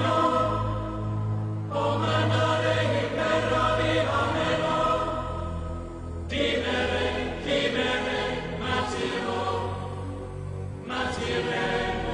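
Slow background music of long held, chant-like choral notes over a steady low drone, moving to a new chord every few seconds.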